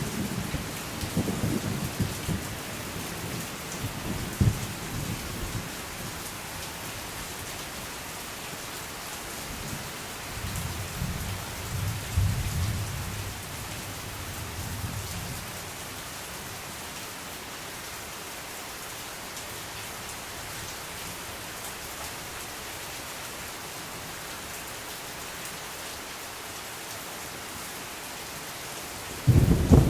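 Steady rain falling, with thunder rumbling low in the first few seconds and again from about ten to fifteen seconds in, and a louder roll of thunder starting right at the end.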